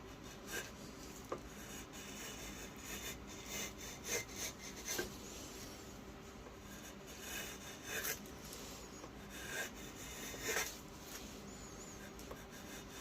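Knife blade made from a salvaged sawmill blade cutting in a series of short, uneven rasping strokes, with one sharp click.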